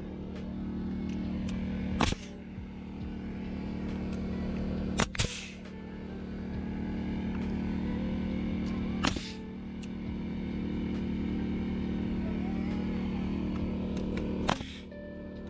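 Pneumatic framing nailer firing nails into joist lumber: four sharp shots, a few seconds apart. A steady machine hum runs underneath.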